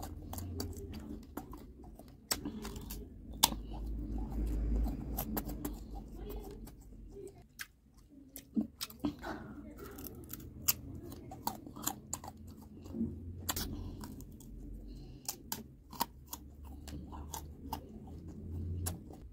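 Close-miked chewing and biting of raw guava: wet mouth sounds broken by many sharp crunches as the firm fruit is bitten into and chewed.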